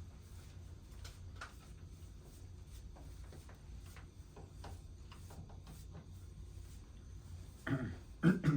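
Faint scattered clicks and small handling sounds over a steady low hum, with a short, louder sound near the end.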